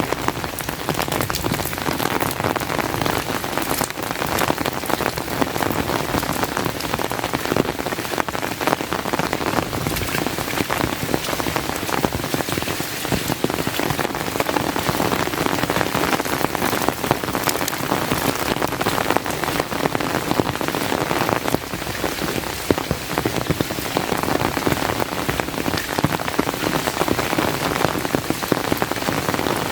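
Steady heavy rain falling, with many sharp individual drop hits over a dense even patter.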